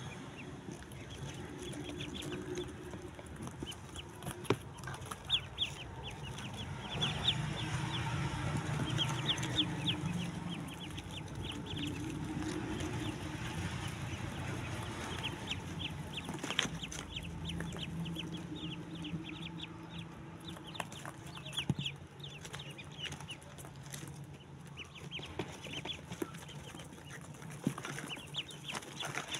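A box full of domestic ducklings peeping: many short high chirps overlapping in quick runs, over a low steady hum, with a few sharp taps here and there.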